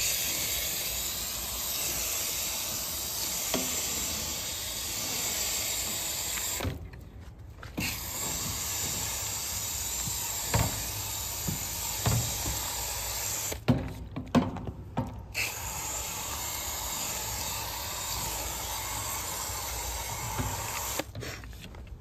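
Hose-fed foam gun spraying foaming coil cleaner onto an air-conditioner condenser coil: a steady jet of water and foam hissing against the fins. The spray stops briefly about seven seconds in, twice around fourteen seconds, and again near the end, with a few light knocks in between.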